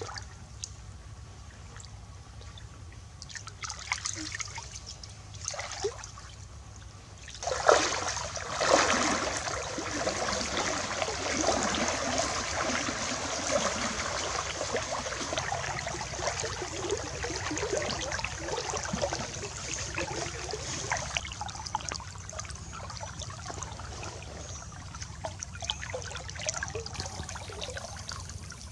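Water splashing and sloshing: a few small splashes at first, then, from about seven seconds in, a sudden continuous swishing of water as someone wades through a shallow stream, easing off somewhat near the end.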